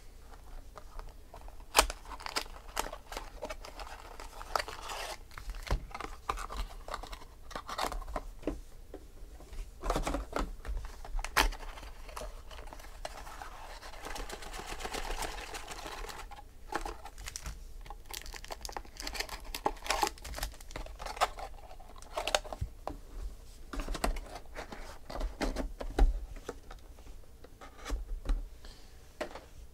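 Foil wrappers of Panini Select football card packs crinkling and cardboard box parts scraping as the packs are pulled from the box and stacked, with scattered sharp taps.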